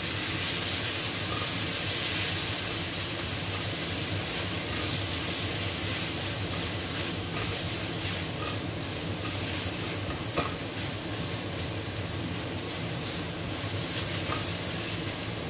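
Tomatoes, onion, garlic and ginger sizzling in hot oil in a wok while a spatula stirs and scrapes them around the pan, a steady sauté as the tomatoes soften. One sharper knock about ten seconds in.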